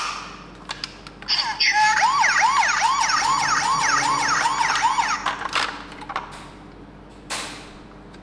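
Toy ambulance's electronic siren sounding for about five seconds: a fast, repeating rising wail, about three sweeps a second, then cutting off. A sharp click near the start and a short whoosh near the end.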